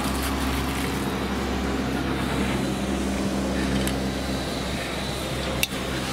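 Vegetables sizzling in a wok on a portable gas stove, over a steady low engine-like hum. There is one sharp clack about five and a half seconds in.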